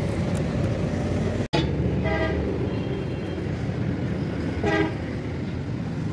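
Steady rumble of passing road traffic, with two short vehicle horn toots, about two seconds in and again a little before five seconds.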